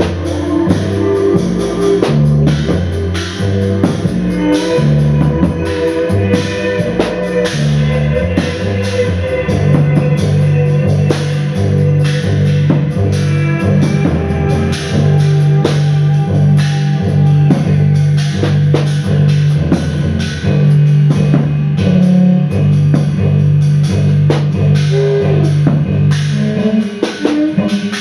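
Live band music: a drum kit played in busy, rapid strokes over a low, repeating pulsed note and guitar. The low part changes near the end.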